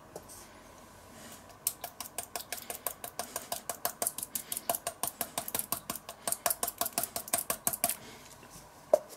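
Glass spice jar of curry powder shaken over a stainless steel bowl, giving a quick, even run of sharp clicks, about six or seven a second, that starts a second and a half in and stops near the end. One more click follows.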